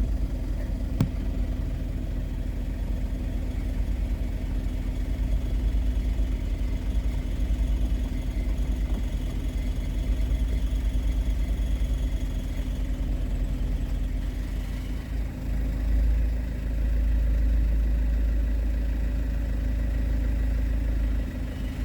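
Car engine idling with a steady low hum, the low rumble growing louder about three-quarters of the way through.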